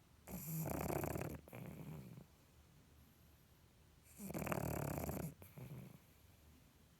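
Pug snoring in its sleep: two long snores about four seconds apart, each lasting about two seconds and breaking off briefly before a shorter tail.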